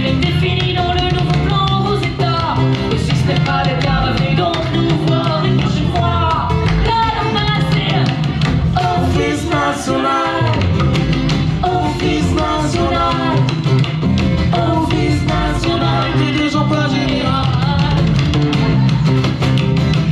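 Live blues band playing: a singer's voice over guitars, bass and percussion, at a steady loud level.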